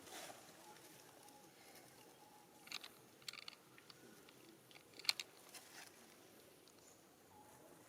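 Near silence with a few faint, short clicks and taps, the loudest about five seconds in.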